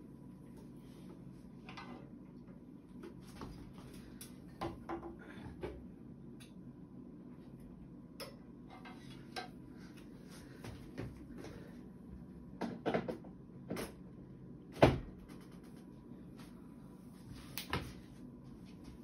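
A power drill and reloading tools being handled and set up on a desk: scattered clicks, knocks and clatter, with a cluster of knocks near the middle and a sharp thump about 15 seconds in, the loudest, over a steady low hum.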